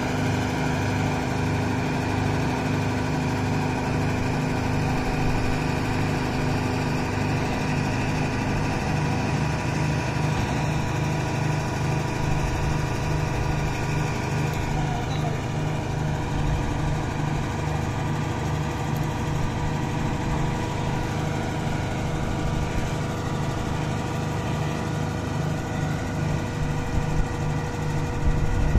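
Engine of a truck-mounted borewell drilling rig running steadily while its hydraulic drill mast is raised upright. A steady hum on top of the engine drops out about nine seconds in.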